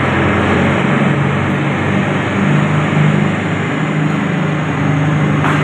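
Pakistan Railways ZCU-20 diesel-electric locomotive's engine running as it draws in along the platform, a low steady drone whose pitch steps up a little about two seconds in, over a continuous noisy wash.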